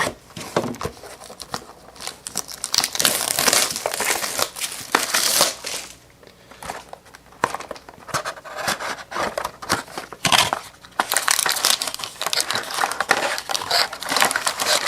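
Plastic wrapping crinkling and rustling as a sealed box of trading cards is unwrapped and opened, in irregular bursts of handling noise with brief pauses.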